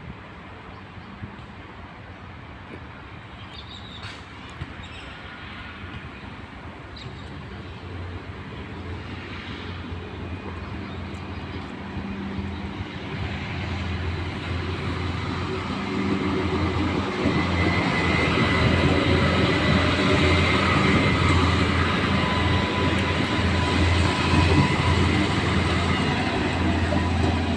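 Adelaide 3000/3100-class diesel railcars approaching and coming alongside, their engines' low steady hum growing louder over about twenty seconds before easing a little near the end.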